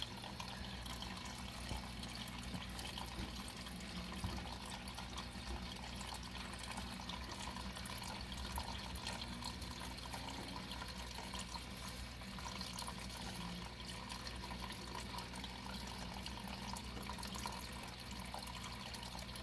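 Faint steady background hiss with a low hum underneath.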